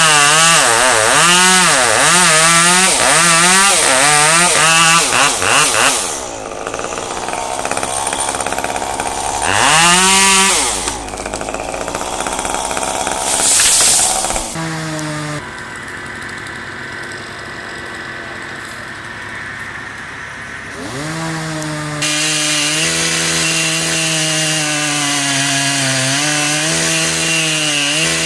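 Two-stroke chainsaw engine revved in quick repeated blips for the first six seconds, then dropping lower with single revs around ten and fourteen seconds. From about twenty seconds in it runs steadily at a high, slightly wavering pitch.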